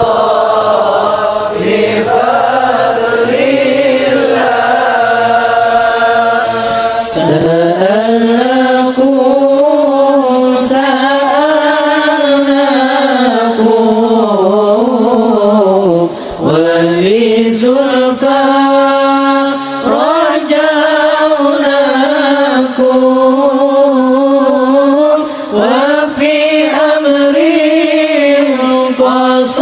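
Islamic devotional chanting in Arabic: a voice sings long, ornamented phrases that bend up and down in pitch, with short breaks between phrases about halfway through and again near the end.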